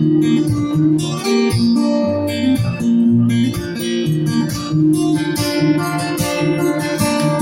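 Acoustic guitar strummed in an instrumental passage of a live song, chords ringing with a steady strumming rhythm.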